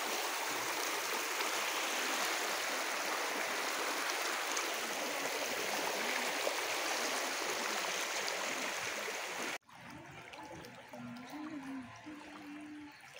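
Floodwater rushing over a street with a steady, loud, even roar that cuts off abruptly about nine and a half seconds in. After the cut, quieter water lapping with faint voices in the background.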